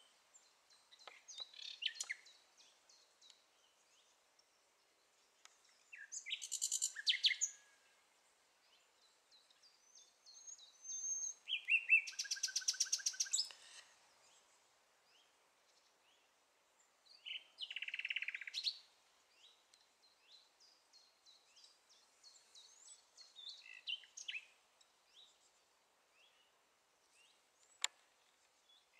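Common nightingale singing in separate phrases a few seconds apart, with softer whistles and chirps between them. The loudest phrase, near the middle, is a fast run of rapidly repeated notes. A single sharp click comes near the end.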